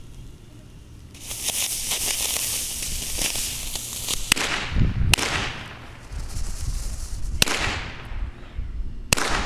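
Firework rocket motor strapped to a vape tank, hissing loudly as it burns, with four sharp bangs from about four seconds in. It is a failed launch: the rocket never takes off, which the maker puts down to the tank being a little too heavy.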